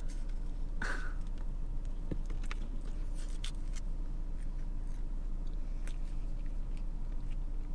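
A person biting into a Japanese crepe filled with fruit and custard cream and chewing it, with small wet mouth clicks and crunches. The strongest bite sound comes about a second in, over a steady low hum.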